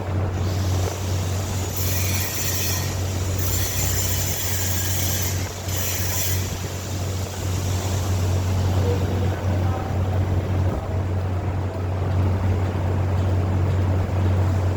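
A steady low machine hum, with three short bursts of high hissing noise about two, four and six seconds in.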